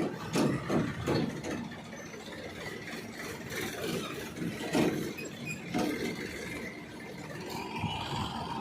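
Heavy machinery engine running unevenly, with a steady higher whine coming in near the end.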